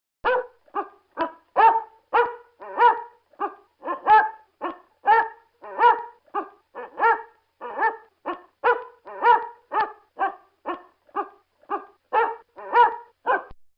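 A dog barking repeatedly, about two barks a second, some 25 short barks in a steady run.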